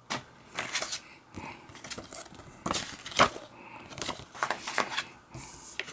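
A plastic DVD case and its paper leaflet being handled: a run of irregular clicks, taps and rustles, the loudest about three seconds in.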